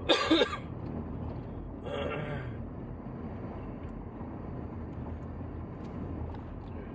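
Steady road and engine noise heard from inside a moving vehicle's cabin. Two brief voice sounds break in, one right at the start and one about two seconds in.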